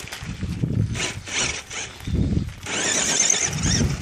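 Tamiya Lunchbox RC car's electric motor and gearbox whining, rising and falling in pitch as the throttle is worked, over low rumbling thumps.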